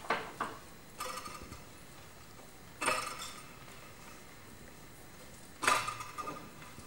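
A handful of sudden clinking strikes on small hard objects, each ringing on briefly, played as live sound accompaniment to a silent film. The loudest strike comes near the end and another about three seconds in.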